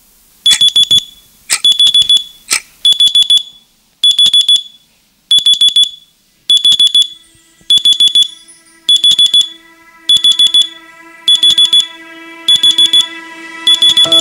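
Electronic alarm beeping in quick bursts of four, a burst a little more than once a second, sounding a wake-up. Soft sustained music tones fade in under the beeps about halfway through.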